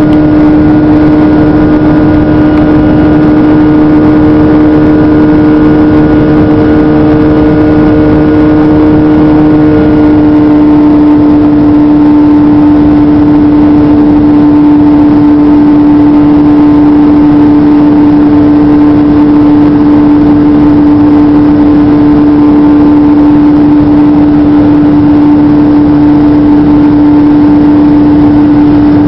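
Jet airliner's turbofan engine heard loud from inside the cabin beside the wing while climbing after takeoff: a steady drone with a strong humming tone. Some of the higher tones change about ten seconds in.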